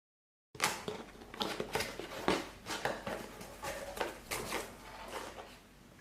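Soldering station kit and its packaging being handled: a dense run of irregular clicks and rustles that starts abruptly about half a second in.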